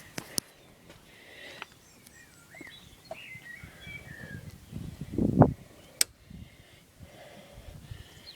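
Birds chirping in the background, with a few sharp clicks and a brief low rumble about five seconds in.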